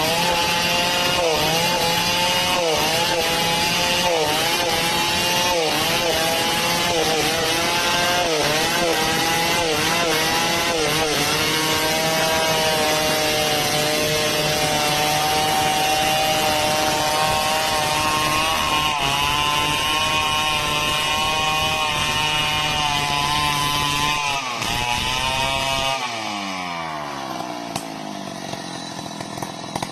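Chainsaw at full throttle cutting coconut lumber, its pitch dipping again and again as the chain bites under load, then holding steadier. Near the end the engine speed falls away and the level drops.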